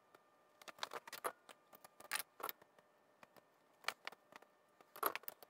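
Scattered light clicks and taps of wire strippers and a wire being handled against a metal amplifier chassis, irregular and unhurried.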